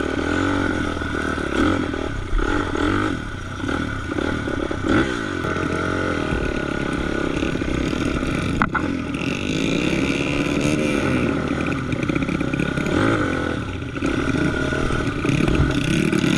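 Kawasaki KX250 dirt bike engine revving up and down again and again as it is ridden through mud, with a sharp knock about eight and a half seconds in.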